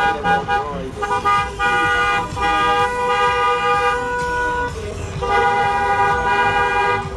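Several car horns of a car procession honking together in long held blasts, broken by short pauses about a second in and again past the middle.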